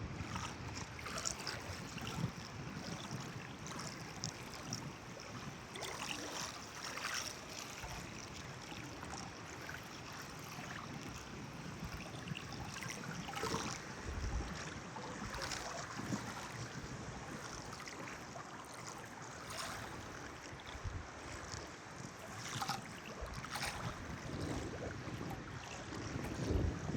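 Water splashing and lapping in irregular small surges every few seconds, with wind rumbling on the microphone.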